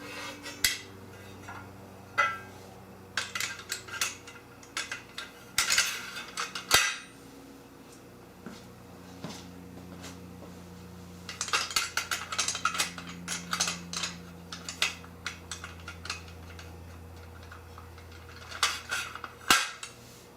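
Aluminium extrusions and metal corner brackets clinking and clattering in scattered bursts as the parts are handled and slid together.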